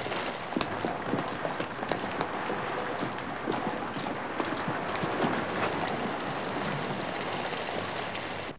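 Steady rain falling, with many individual drops ticking sharply against hard surfaces.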